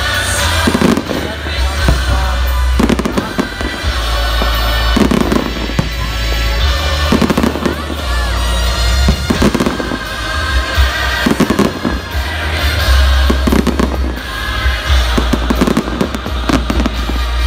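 Aerial fireworks shells bursting and crackling in quick succession, loud and continuous, with music playing along.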